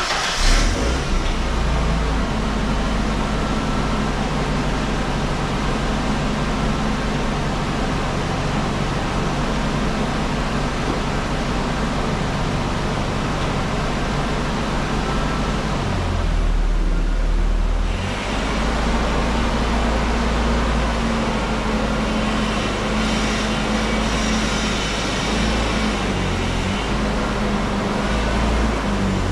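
A 1994 Ford Ranger's 2.3-litre four-cylinder engine running steadily, with an exhaust leak at the muffler-resonator. The engine note changes briefly about sixteen seconds in, then settles again.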